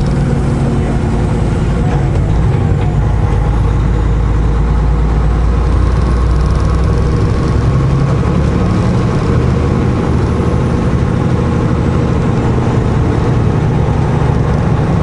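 Semi truck's diesel engine running steadily as the rig drives, a constant low drone with road noise.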